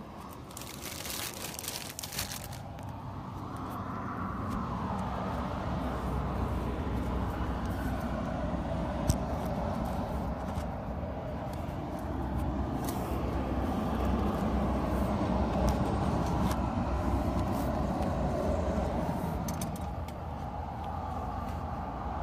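Steady rumble of a motor vehicle that swells over many seconds and eases off near the end, with a burst of rustling handling noise in the first couple of seconds.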